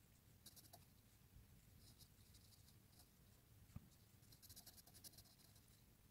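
Faint scratching of an HB pencil on drawing paper, in quick clusters of short hatching strokes, with one soft low knock a little past the middle.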